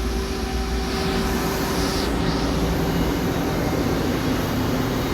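Steady mechanical hum of a Nakamura-Tome AS-200Y CNC turning center running, with a steady tone in it that fades out about three seconds in.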